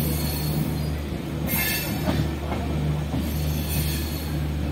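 A passenger train running along the track, heard from inside the coach at an open window: a steady rumble of wheels on rails and a rushing noise, with a brief high-pitched screech about a second and a half in.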